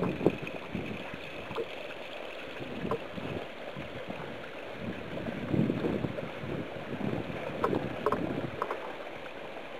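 Shallow water running and trickling over stones along a flooded path, with a low gusty rumble of wind on the microphone. There are a few sharp clicks, a cluster of them near the end.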